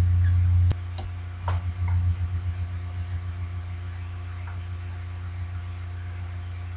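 Low electrical mains hum, a steady buzz that is louder for the first moment and pulses again around two seconds in, with one sharp click just under a second in.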